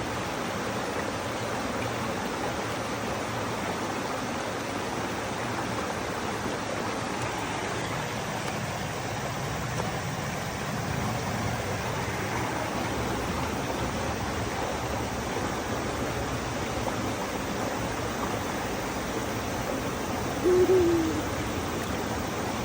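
Steady rush of a valley stream. About twenty seconds in, a single short hooting sound rises above the water, the loudest thing heard.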